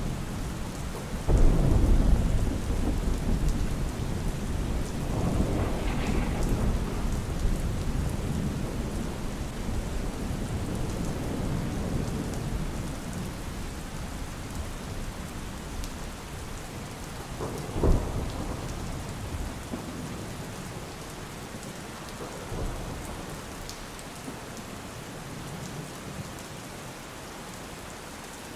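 Steady rain with rolling thunder: a loud low rumble breaks about a second in and rolls on for several seconds, a sharper clap comes about two-thirds of the way through, and a fainter rumble follows shortly after.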